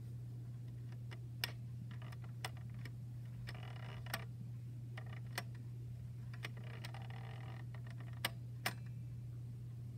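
Irregular light clicks and faint scraping from a quartz ship's bell clock as its hands are advanced by hand toward the hour, about seven clicks in all. A steady low hum runs underneath.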